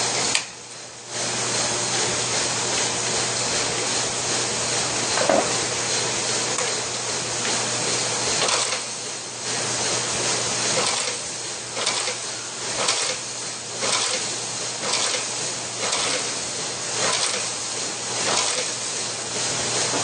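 HaoHann HAF-2M snap button fastening machine setting spring snap buttons, its press striking in a rough rhythm of about one stroke a second in the second half, over a steady hiss and low hum.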